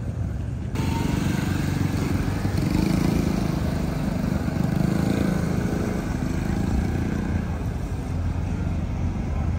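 Car engine idling with a steady low rumble, over outdoor background noise.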